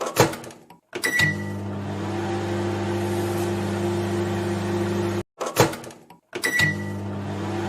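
Microwave oven starting up: a few clicks, a short high beep about a second in, then the steady hum of it running. The same click, beep and hum sequence starts over about five seconds in after a brief cut.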